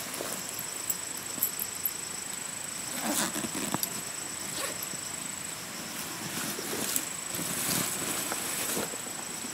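Fabric backpack being handled, closed up and lifted: irregular rustling of nylon fabric and straps, busiest about three seconds in and again in the last few seconds. A steady high-pitched buzz runs underneath.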